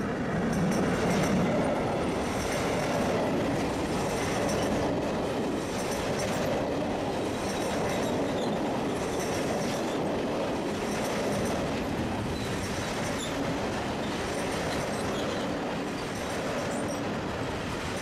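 Long freight train of covered wagons rolling past close by at steady speed: a continuous rumble and clatter of wheels on the rails, with faint intermittent wheel squeal on the curve. At the start the second of two SNCF BB 75000 diesel-electric locomotives goes by, its engine drone fading within the first second or two.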